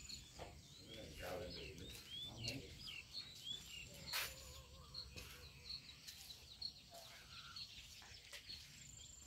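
Faint twittering of small birds: many short, high chirps repeated throughout, over a soft background of insects.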